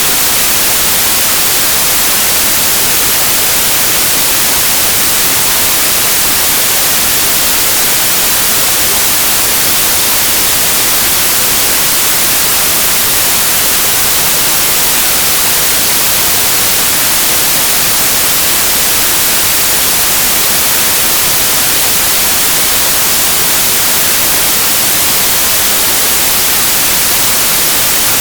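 Steady white noise: an even, unchanging hiss that is brightest in the highest frequencies, with no changes or breaks.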